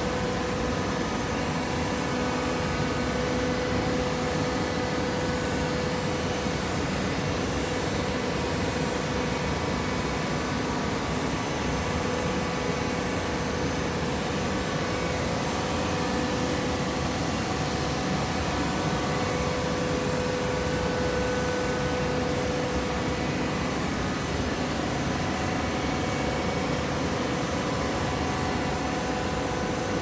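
TCM horizontal hydraulic baler running while baling animal fiber: a steady machine hum with a constant whine.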